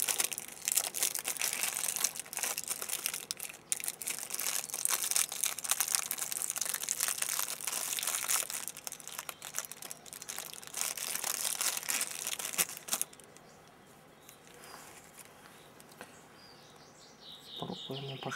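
Crinkling and tearing of the foil wrapper on a packet of ration crackers as it is torn open, a dense run of crackles that stops about 13 seconds in.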